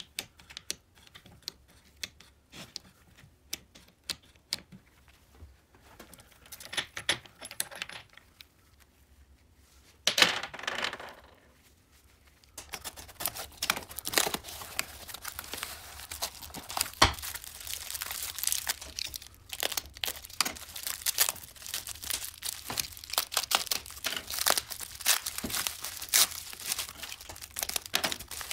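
Scattered light clicks and taps of metal engine parts being handled, then, about halfway through, continuous crinkling and tearing of plastic bubble wrap and cardboard packaging as new parts are unwrapped.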